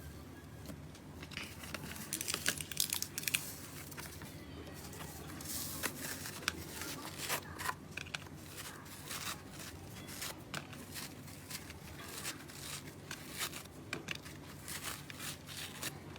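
Slime being squeezed and pressed by hand, making irregular small crackles, pops and squishes, loudest in a cluster about two to three seconds in.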